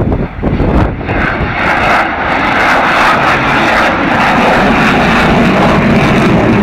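Avro Vulcan bomber's four Rolls-Royce Olympus turbojets running as it pulls up into a steep climb. The sound is a loud jet roar, rough and gusty for about the first second, then settling into a steady, dense roar.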